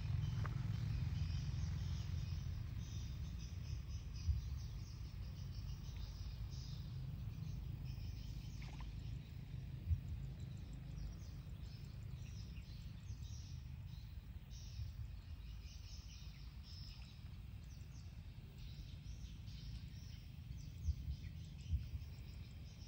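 Open-field ambience: insects and birds chirping high and often over a low steady rumble that slowly fades, with a few brief soft thumps.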